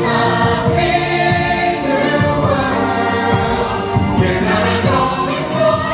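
Stage-musical song: voices singing together, holding and gliding between notes, over loud backing music.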